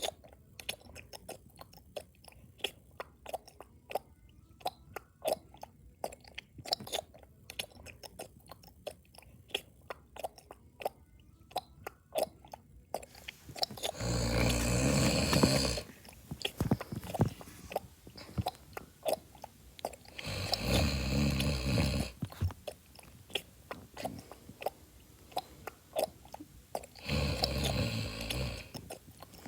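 A person chewing loudly: a rapid, uneven run of small mouth clicks and smacks. In the second half come three louder snores, each lasting a second and a half to two seconds, about six seconds apart.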